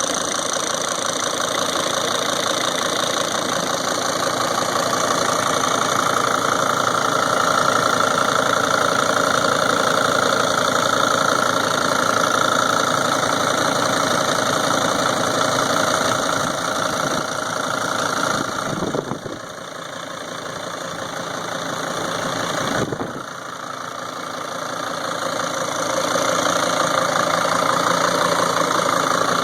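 2003 Sprinter van engine running at idle with a knocking and ticking that is louder than normal. The loudness drops sharply twice, about two-thirds of the way through, and builds back up each time.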